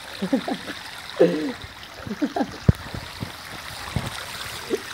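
Irrigation water running fast through a lay-flat field pipe: a steady rush with short gurgling blips and a few soft knocks.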